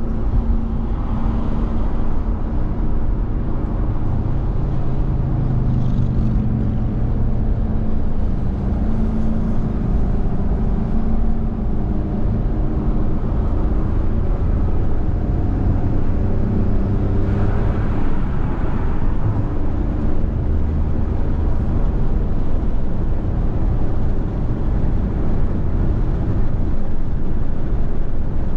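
Car driving on a wet road: steady tyre and road noise with a low engine hum that drifts in pitch. Two brief swells of brighter noise come about a second in and again around seventeen seconds in.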